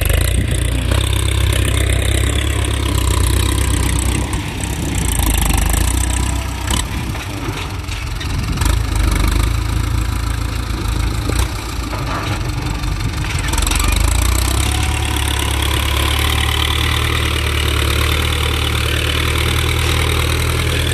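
Ford 6610 tractor's four-cylinder diesel engine running steadily, with a loud 'peud-peud' exhaust note, working a disc plough. It grows louder about 14 seconds in.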